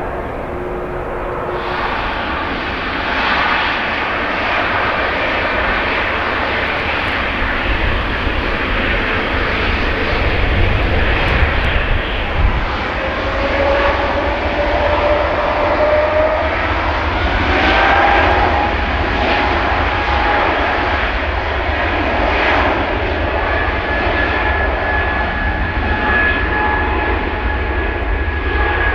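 Jet airliner engines running loudly at close range: a steady deep rumble under a dense roar, with a whine that climbs in pitch about halfway through.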